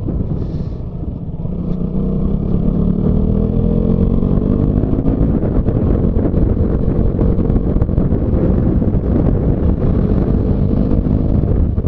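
Motorcycle engine pulling ahead, its note rising over the first few seconds and then holding steady at cruising speed.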